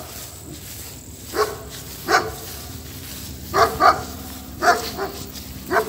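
A dog barking: about seven short barks at irregular intervals, some coming in quick pairs.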